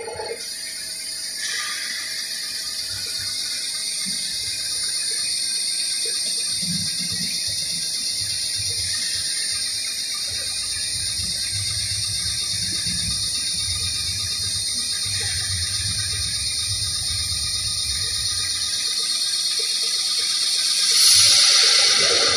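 Water running steadily, a rushing hiss that builds gradually and gets louder near the end.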